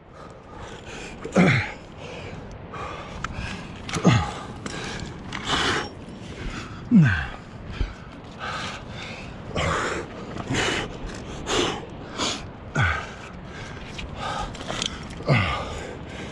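A rock climber breathing hard while jamming up a granite crack, with several short grunts that drop in pitch.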